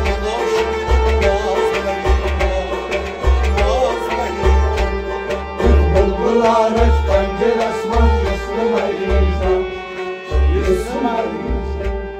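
Kashmiri devotional folk music: a harmonium holding steady chords while a hand drum beats a regular pattern of deep strokes, with a man singing over them.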